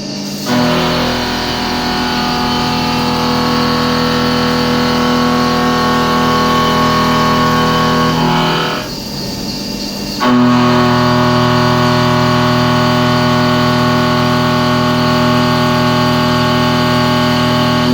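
CNC vertical machining centre dry-cutting carbon steel with an 8 mm ZCC carbide end mill, a steady, loud, many-toned whine. The cut breaks off about eight seconds in, then resumes with a slightly different pitch about ten seconds in.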